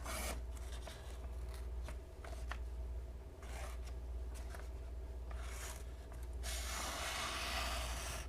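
Blade of a carbon-fibre-handled flipper knife (a Spyderco Brad Southard copy) drawn through a sheet of paper: a few short rasping cuts, then one longer cut of about two seconds near the end. The cut is not clean; the blade needs sharpening to slice paper smoothly.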